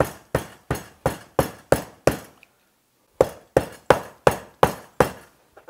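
Meat mallet pounding raw chicken breast flat on a plastic cutting board, about three blows a second. There is a run of about seven blows, a pause of about a second, then six more. The chicken is being flattened to an even thickness.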